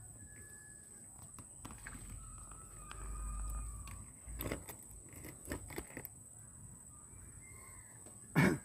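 Quiet outdoor ambience by the water: scattered rustles and clicks of the phone being handled in the brush, a few faint distant high calls, and one brief loud burst near the end.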